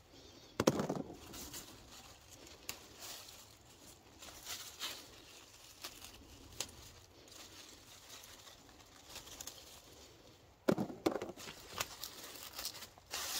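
Faint, scattered rustling and crackling of garden vines and leaves being handled during picking, with light clicks throughout. Two louder bumps come about half a second in and again near the end.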